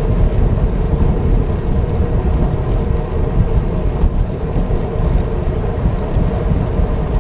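Wind buffeting the microphone of a moving bicycle rider, a loud, steady low rumble.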